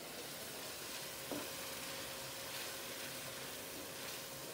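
Thick vegetable-puree sauce sizzling in a non-stick frying pan on a gas burner as it is stirred with a wooden spatula, with a couple of light knocks of the spatula against the pan.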